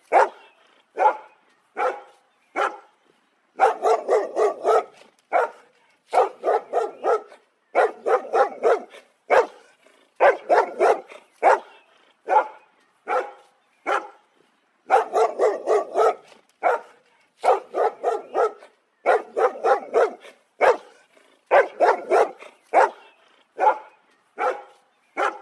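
Dog barking repeatedly in quick runs of short, sharp barks, with brief pauses between the runs.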